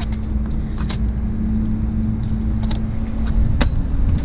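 Steady low mechanical hum with a held drone, like a running motor, with a few sharp clicks and clatters of items being handled in the dumpster.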